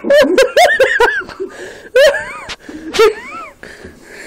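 People laughing hard in short, high-pitched bursts: a quick run of laughs in the first second, then two louder outbursts about two and three seconds in.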